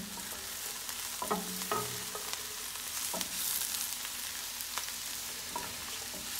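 Sliced mushrooms and red pepper strips sizzling and crackling in a hot skillet as a spatula stirs them, with a few sharp knocks and scrapes of the spatula against the pan.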